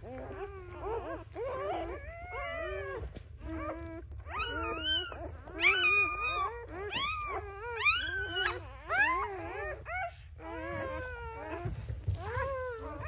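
Several newborn livestock guardian dog puppies squealing and crying at once, high wavering cries overlapping, loudest around the middle.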